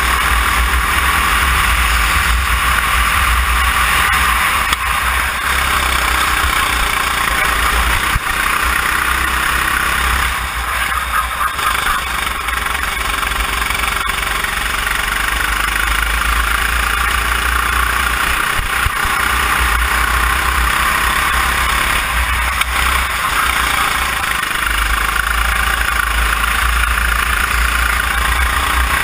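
Sodikart RT8 rental kart's single-cylinder four-stroke engine running at speed around a track, its pitch rising and falling with throttle through the corners over a heavy low rumble. The engine eases off briefly about ten seconds in.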